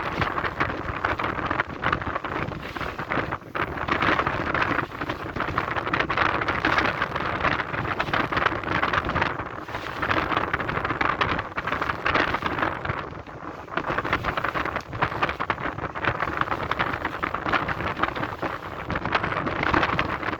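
Strong wind gusting across the microphone, a dense rushing noise that swells and eases, with short lulls a few seconds in and again about two-thirds of the way through.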